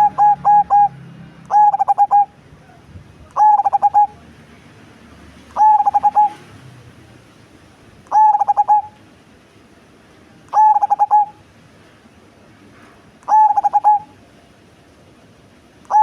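Cemani zebra dove (perkutut) cooing in a deep, bassy voice. A run of rapid coos ends just under a second in, then come six short bursts of quick coos, one about every two and a half seconds.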